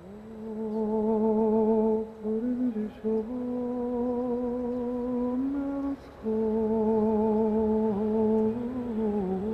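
A wordless voice humming a slow melody in long held notes with a wavering vibrato. It breaks off briefly about two seconds in and again about six seconds in.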